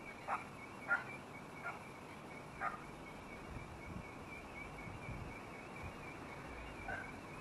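Short animal calls, four in the first three seconds and one more near the end, over a faint steady hiss with a thin high whine.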